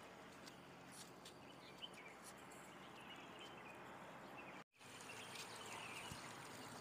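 Faint outdoor ambience: low steady background noise with a few scattered faint bird chirps, and a brief dropout to total silence a little over halfway through.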